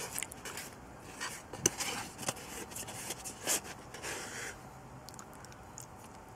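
Flat wooden utensil scraping peanut butter off a disposable plate: irregular light scrapes and ticks, with a couple of sharper taps.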